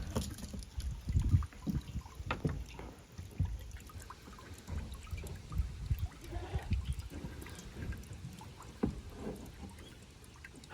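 Wind buffeting the microphone in uneven gusts, a low rumble with scattered faint clicks and rustles.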